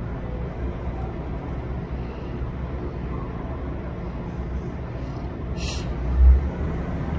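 Steady low rumble of a city bus engine and street traffic. A sharp click comes about five and a half seconds in, followed just after by a low thump.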